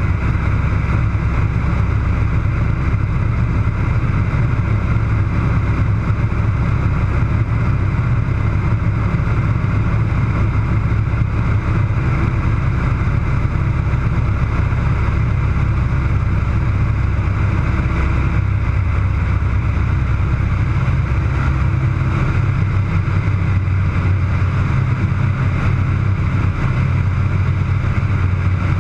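Air Tractor AT-301 crop duster's Pratt & Whitney R-1340 nine-cylinder radial engine and propeller droning steadily in flight, heard from inside the cockpit. Its deepest note shifts slightly about two-thirds of the way through.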